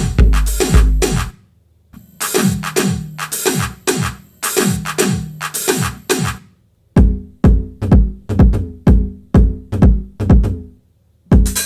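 Electronic dance music: a drum-machine beat of about two heavy hits a second, each with a sharply falling pitch, over a bright top. The track stops dead for a moment about a second in, again a little past the middle, and near the end, then comes back in.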